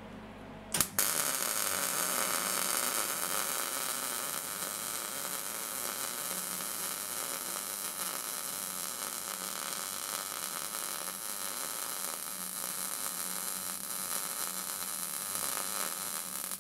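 MIG welding arc struck just under a second in with a sharp crack, then a steady crackling hiss as a continuous bead is laid.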